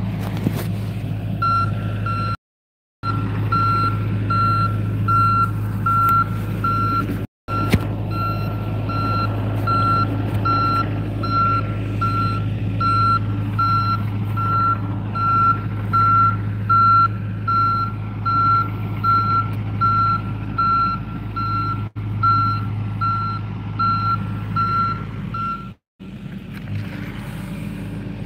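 Construction machine's backup alarm beeping evenly about twice a second over the steady run of a John Deere compact excavator's diesel engine. The beeping stops near the end, and the sound cuts out briefly a few times.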